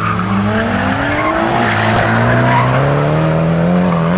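A drift car's engine revving hard, its pitch climbing steadily for about four seconds before dropping away at the end, over the hiss of its tyres skidding.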